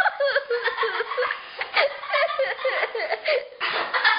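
Children laughing and giggling in high-pitched, broken peals.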